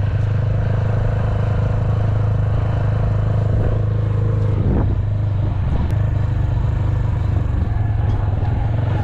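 A vehicle engine running steadily, a loud, even low hum with road and wind noise over it.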